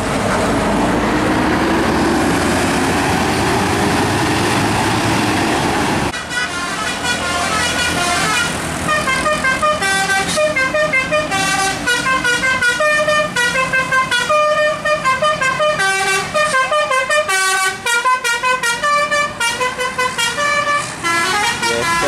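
A bus engine runs loudly as it passes close, its pitch rising slightly. From about six seconds in, a bus's telolet horn plays a quick tune of many short notes.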